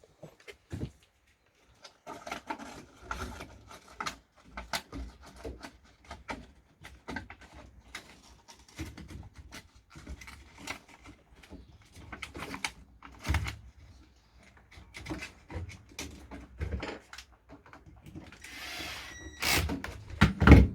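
Irregular clicks, knocks and rattles of hands and tools working on a washing machine's plastic and metal parts during a drain pump replacement, with a short hissing stretch near the end and a sharp knock just before it ends.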